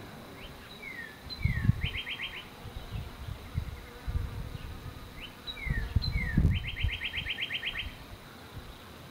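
Honey bees buzzing at the hive while a songbird sings twice, each song a few short slurred notes ending in a fast trill. Low bumps of noise on the microphone come in during each song and are the loudest sounds.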